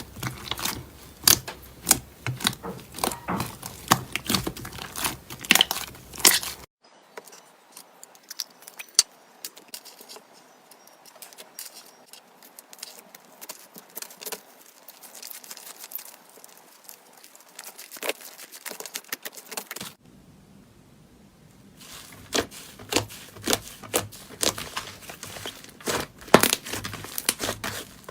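Slime being squished and pressed by hand, crackling and popping in quick sharp clicks. Much softer and sparser through the middle, with a short lull before the loud clicking returns.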